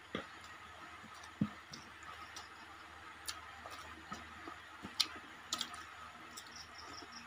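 Faint, irregular clicks and smacks of people eating rice and fish curry with their fingers and chewing, two louder ones about a second and a half in and near five seconds, over a steady faint background hiss.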